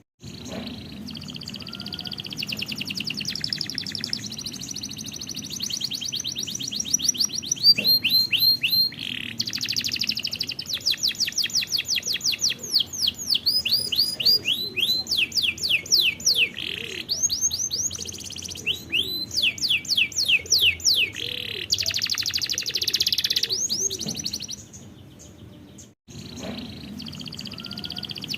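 Domestic canary singing its song in long rolls of rapidly repeated notes, switching between fast buzzy trills and slower runs of descending whistled sweeps, with a brief drop-out about two seconds before the end.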